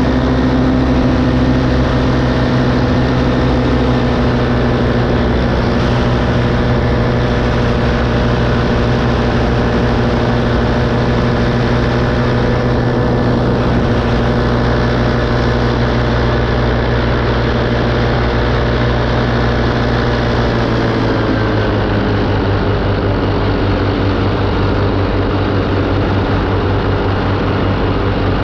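Paramotor's engine and propeller running steadily in flight, close to the microphone. The engine note drops slightly about three-quarters of the way through.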